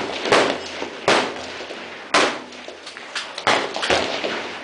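Rifle shots on a firing line: about six sharp reports at irregular intervals, each a sudden crack with a short ringing tail.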